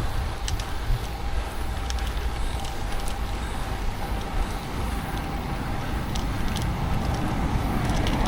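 Road bike climbing, heard from an action camera on the ride: a steady low rumble of road and wind with scattered light clicks.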